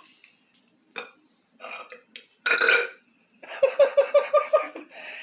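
Person burping on purpose: a short, loud belch about two and a half seconds in, then about a second later a longer, choppy stretch of rapid pulses.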